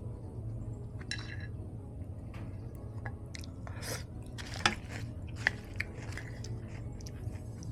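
Close-miked chewing of crunchy pita chips and salad: wet crunching and crackling, with a few sharp, louder crunches about halfway through.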